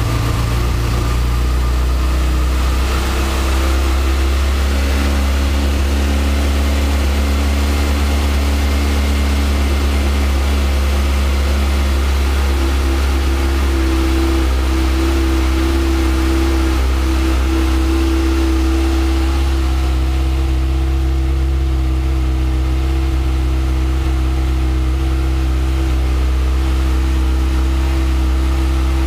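Kawasaki Ninja ZX-6R 636's inline four-cylinder engine idling steadily on its standard exhaust while still cold. The idle note shifts slightly a couple of times.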